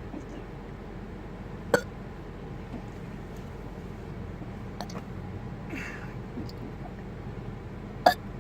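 Short, sharp hiccups: two loud ones, one about two seconds in and one near the end, with a fainter one in between.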